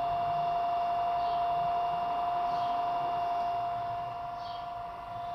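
Small electric circulation pump of a water-cooling suit running with a steady whine as it pumps water through the suit's tubing.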